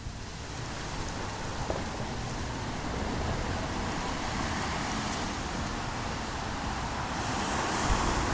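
Street traffic going by, a steady hiss of tyres on the road that swells near the end as a vehicle passes, with wind rumbling on the microphone.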